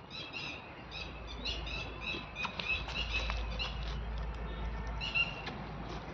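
Small birds chirping in quick, repeated short notes, over a steady low rumble that starts about a second in, with a few faint clicks.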